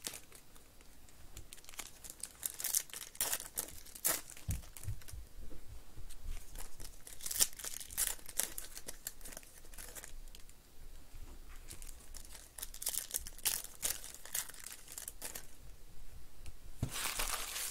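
Foil wrapper of a Panini baseball card pack being torn open and crinkled in the hands, with the cards handled. It comes in irregular crackling clusters, densest and loudest near the end.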